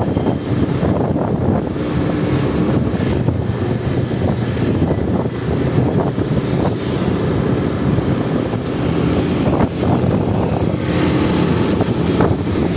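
Motorbike engine running steadily while riding along a street, mixed with a steady rush of road noise.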